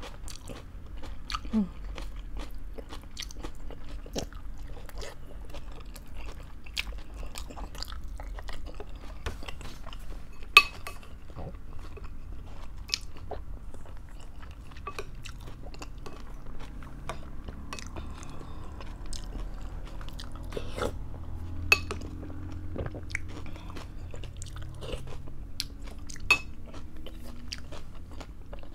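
A person chewing and crunching food close to the microphone, with frequent short wet mouth clicks and a few sharper, louder clicks about a third of the way in, near three-quarters of the way in and near the end.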